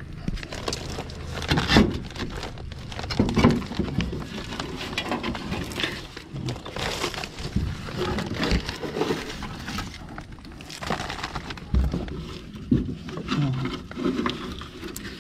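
Hands pulling dead leaves and debris out of a leaf-blocked roof gutter under concrete roof tiles: irregular rustles and scrapes with occasional sharp clicks.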